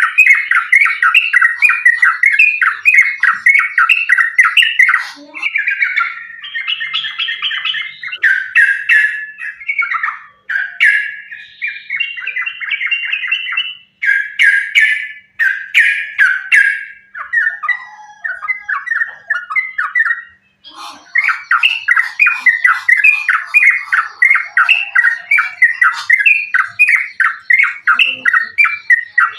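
Yellow-vented bulbuls (trucukan) singing in rapid, unbroken runs of chattering notes, with harsher squawking calls mixed in, typical of the excited 'fighting' song. The runs pause briefly about ten, fourteen and twenty seconds in.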